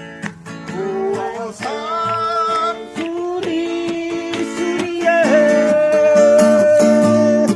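Acoustic guitar strummed while a person sings in long held notes, with one note held for over two seconds from about five seconds in.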